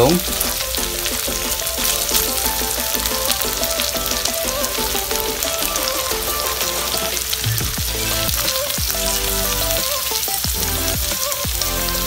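Hot oil sizzling steadily in a frying pan of onion, garlic and ginger as pieces of eggplant are laid in. Background music with a melody plays along.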